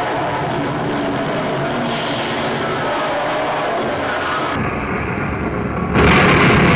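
Motor engines running, their pitch wavering, over a steady din. About four and a half seconds in it cuts to a muffled low rumble, and loud drum-backed music starts near the end.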